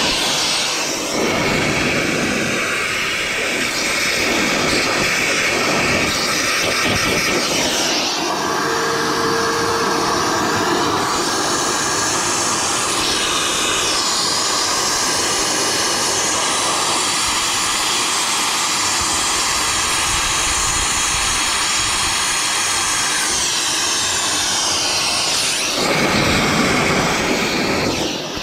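Shop vac running steadily, sucking soot out of the exhaust back pressure sensor port on a 6.7 Cummins exhaust manifold. Its whine shifts in pitch about eight seconds in and again near the end as the airflow changes.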